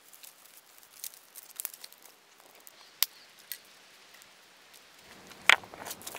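Sparse crackling and clicking from dry grass tinder and a small stick fire, with one louder knock about five and a half seconds in.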